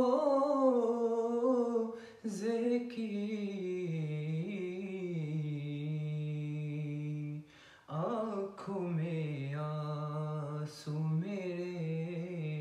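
A man's voice singing an Urdu naat unaccompanied, drawing out long, wavering held notes, with short breaks about two seconds in and just before eight seconds.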